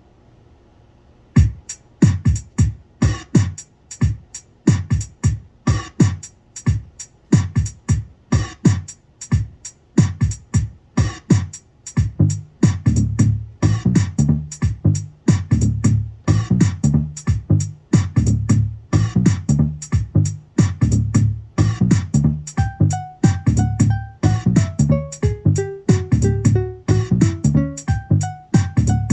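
Electronic music played on hardware synthesizers and a drum machine: a steady drum-machine beat starts about a second and a half in, a synth bass line fills in around halfway, and a synth melody with sliding pitches comes in near the end.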